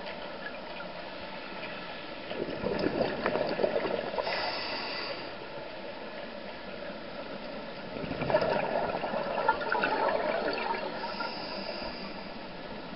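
Scuba diver breathing through a demand regulator, heard underwater: two long bubbling exhalations, about two and eight seconds in, each followed by a short hiss of inhalation.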